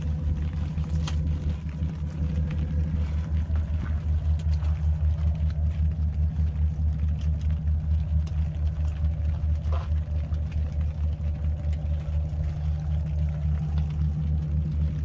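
A vehicle engine idling steadily, a low, evenly pulsing rumble, with a few faint clicks of a knife scraping out a small fish.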